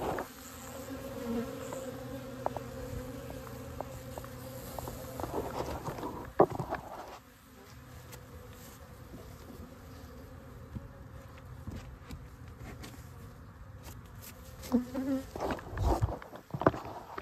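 A colony of honeybees buzzing steadily over an opened hive, with bees flying close around. A single sharp knock comes about six seconds in, and a few more knocks and thumps come near the end.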